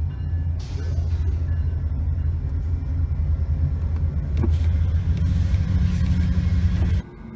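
A steady low vehicle rumble with some faint higher noise over it, cutting off suddenly about seven seconds in.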